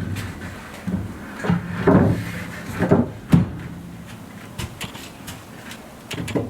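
Several knocks and clunks of things being handled, with a sharp click about three seconds in and lighter clicks near the end.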